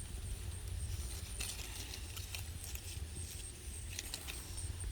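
Outdoor ambience of wind rumbling low on the microphone, with scattered light footsteps and rustles.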